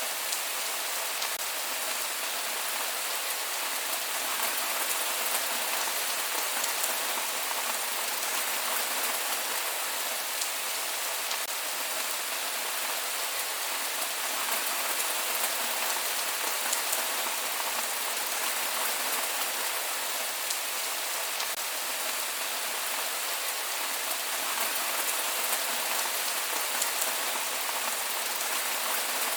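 Steady rain falling on a surface, an even hiss with scattered drop ticks and no thunder.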